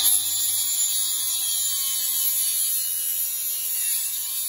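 Angle grinder with a cut-off wheel running steadily, a high-pitched whine as it cuts through the steel parking-brake cables. It slices through easily.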